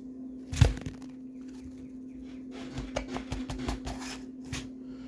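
Plastic toy parts being handled and pried at: a sharp knock about half a second in, then a run of small clicks and rattles, over a steady low hum.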